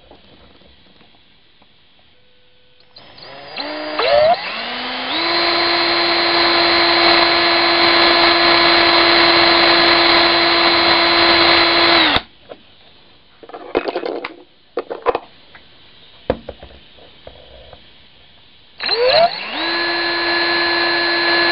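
Electric drill spinning up with a rising whine to a steady hum and running for about seven seconds as it bores a hole through a plastic trim piece, then stopping sharply. A few short bursts follow, and near the end it spins up and runs again.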